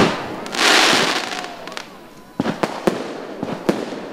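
Fireworks going off: a loud bang at the start, then a hissing rush lasting about a second, then several sharp bangs in quick succession in the second half.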